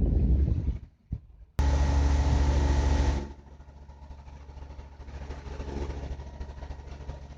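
A boat's engine running steadily with rumbling wind noise, broken by abrupt cuts. The sound drops to near silence for about half a second about a second in, comes back loud and steady, then falls to a quieter steady hum about three seconds in.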